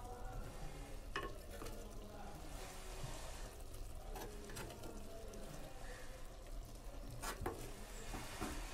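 A spoon scooping and scraping through the mackerel masala in an earthenware pot, with several light knocks of the spoon against the clay, over a faint sizzle from the hot gravy.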